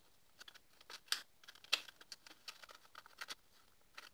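A folded sheet of A4 paper being folded over and creased by hand: faint, scattered rustles and light scrapes, with two sharper rustles about a second and nearly two seconds in.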